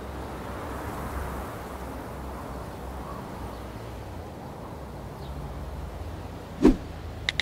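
Steady low background ambience with a single sudden thump near the end. Right after it, a rapid run of short, pitched electronic clicks begins, like a phone's on-screen typing sounds.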